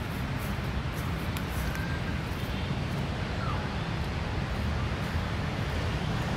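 Steady outdoor background noise: a low rumble under an even hiss, with a couple of faint short chirps.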